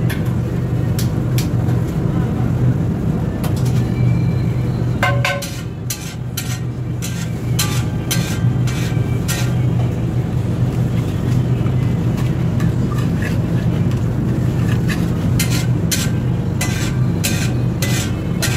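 Steel pav bhaji masher and spatula knocking and scraping on a large flat tawa as the bhaji is mashed: a run of sharp metal clicks that gets busier near the end. Under them is a steady low hum.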